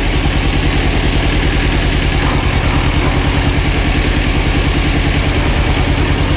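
Kubota L175 compact tractor's diesel engine idling steadily with an even, pulsing beat.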